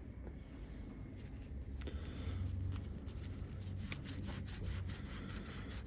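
Hand scrubbing of a brake part with an abrasive, a light irregular rasping rub with a few small clicks over a steady low hum.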